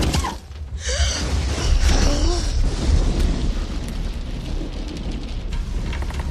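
Film sound effects: a heavy thump of a goat's leg landing on a car's glass roof, then a deep, sustained low rumble from the Tyrannosaurus rex under steady rain.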